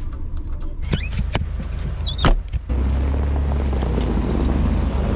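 A few sharp knocks and a short falling squeak, then, from about halfway in, steady wind buffeting the microphone out on open ice.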